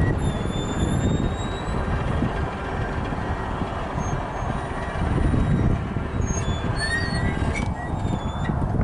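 Wind buffeting the microphone, a steady low rumble over open country. A few faint, thin high chirps come through, likely small birds, about a second in and again around seven seconds.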